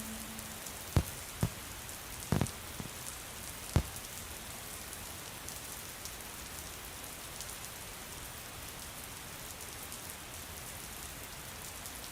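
Steady rain falling, an even hiss of drops, with a few sharp louder drop taps in the first four seconds.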